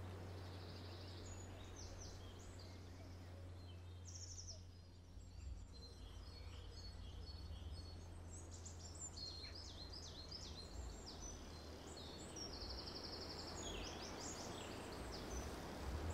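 Birdsong from several small songbirds: quick chirps and trills, sparse at first and busier from about halfway through, over a steady low hum.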